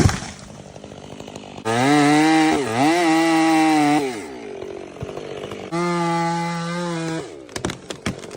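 Two-stroke chainsaw running at high revs in two bursts. In the first burst, about two seconds in, the pitch dips briefly and recovers as the saw loads in the wood. The second burst, near the six-second mark, holds steady. A sharp knock comes at the very start, and a few cracks follow near the end.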